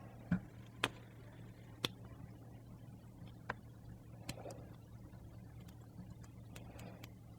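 Faint, scattered clicks from a half-diamond lock pick and pins inside an Abus 72/40 padlock held under tension, about one click a second at irregular intervals, as each pin is felt for counter-rotation of the plug.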